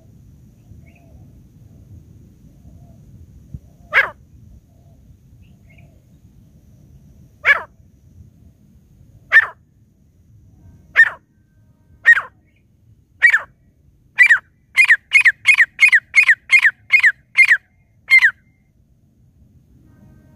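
Grey francolin (teetar) calling: loud, short falling notes, a second or more apart at first, that quicken into a rapid run of about nine notes near the end. It is the decoy call used to lure wild francolins.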